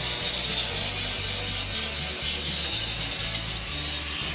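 Angle grinder grinding down MIG welds on a steel bed frame, a steady hissing grind smoothing the rough beads, over background music.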